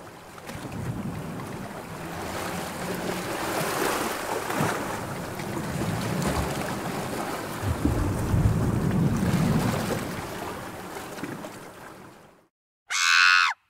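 Sea waves and wind rushing, with slow swells, fading in and out again. Just before the end comes a separate short, loud pitched sound of about half a second.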